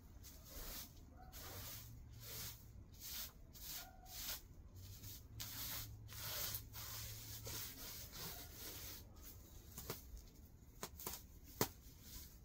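Dry straw and pulled weeds rustling and crackling as gloved hands scrape them up off a fabric-covered floor, in short irregular handfuls, with a few sharp clicks near the end.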